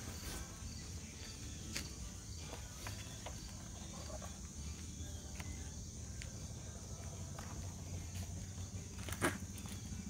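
Steady chirring of insects with a low rumble under it, and a few soft knocks; one sharper click about nine seconds in.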